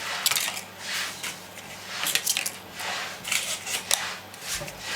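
Paper cupcake cases rustling and being set into a metal cupcake tray, with an irregular run of light crinkles, taps and clinks.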